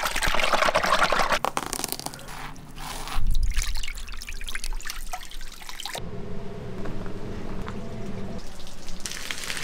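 Water splashing, dripping and trickling, broken up by short knocks. At about six seconds it cuts off abruptly to a quieter, steady low hum.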